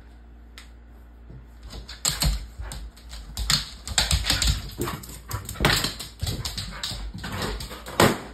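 A dog playing with an inflated rubber balloon. From about two seconds in comes a rapid, irregular run of loud bumps, scuffs and rubbery thuds as she lunges at and mouths the balloon and her paws scrabble on the laminate floor.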